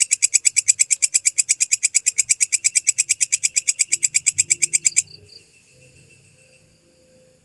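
Belalang kecek katydid calling: a loud, rapid, even train of shrill ticking pulses, about eleven a second, that stops abruptly about five seconds in, leaving only faint background.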